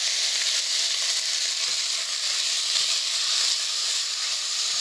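Pork and kimchi sizzling in a hot frying pan as they are stirred together with a silicone spatula: a steady frying hiss.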